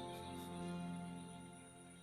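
Soft instrumental background music with held notes, fading out toward the end.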